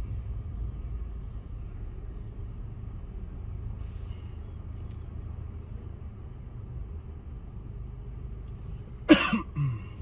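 Car at a standstill with its engine idling, a low steady rumble heard from inside the cabin. Near the end a sudden short loud sound comes twice in quick succession.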